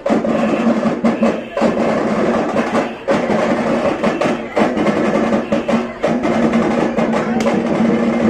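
Tamate frame drums beaten fast with sticks in a dense rolling rhythm, with brief breaks about every one and a half seconds.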